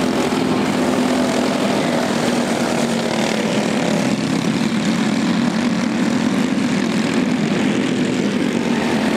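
Small go-kart engines running together at racing speed, a steady, even drone with no single engine standing out.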